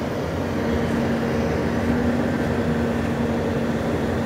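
Freightliner SD garbage truck with a McNeilus rear-loader body, its engine running steadily: a loud, constant drone with a steady hum.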